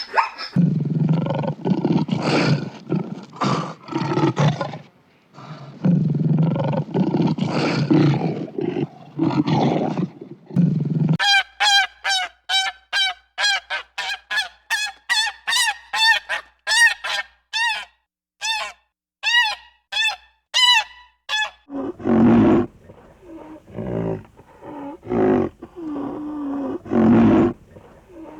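Animal calls: rough, low calls for about ten seconds, then a run of short, high, honking calls about two a second, then rough low calls again.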